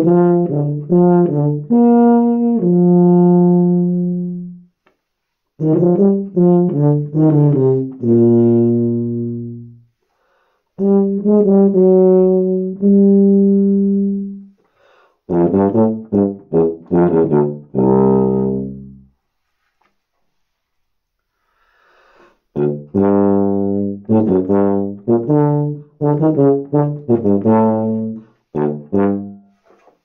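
Solo tuba playing short phrases of film music: quick detached notes, each phrase ending on a longer held low note, with brief pauses between phrases and a longer one past the middle.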